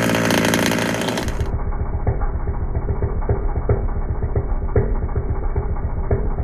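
Rovan Baja RC buggy's two-stroke petrol engine running at high revs for about a second, then, after a sudden change in the sound, idling with a low, even pulsing and faint ticks about twice a second.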